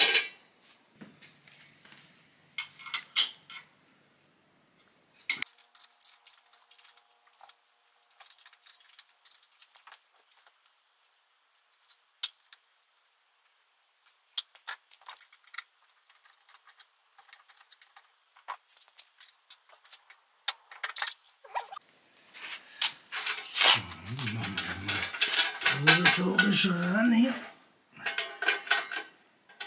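Scattered metallic clinks, taps and rattles of a racing expansion-chamber exhaust and tools being handled as the exhaust is offered up to a moped and tied in place with cable ties. There are short pauses between them, and a busier stretch of rattling and scraping comes about three quarters of the way through.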